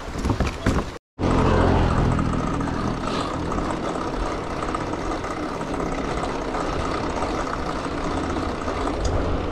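Bicycle wheels clattering over loose wooden bridge planks for about a second, then a cut to a steady low hum and rushing noise: a mountain bike rolling at speed on asphalt, with tyre hum and wind on the handlebar camera.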